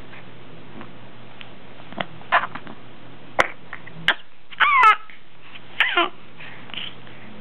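A baby babbling in short bursts of coos and squeals, with a sharp click or two in between; the loudest, a wavering squeal, comes a little past the middle.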